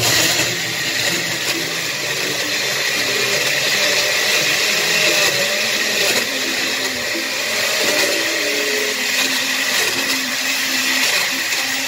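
Countertop blender switched on suddenly and running steadily at speed, puréeing a thick huancaína sauce of yellow chili peppers, cheese, milk and oil.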